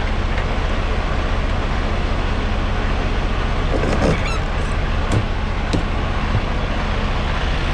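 Semi truck's diesel engine running steadily with a low hum. There is a short pitched sound about four seconds in and a couple of sharp clicks a little later.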